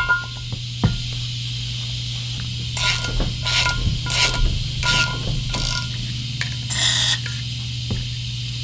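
Ratchet handle clicking in short bursts as it turns a Time-Sert multi-step reamer, cutting into the spark plug hole of an aluminium Ford Triton cylinder head, over a steady low hum.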